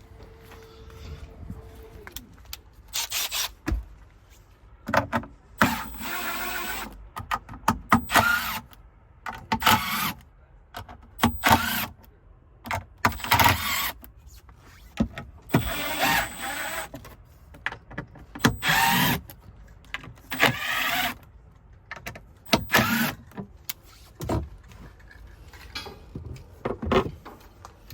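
A power tool run in repeated short bursts, with knocks and clatter between them.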